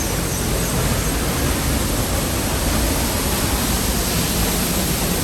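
A large waterfall close by: falling water rushing steadily and loudly, an even wash of noise from deep rumble to high hiss.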